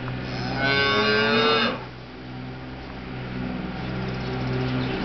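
Cattle calling: a loud, higher bawl with rich overtones for about a second and a half, then a low, softer moo that swells toward the end. It is a newborn calf and its mother calling to each other.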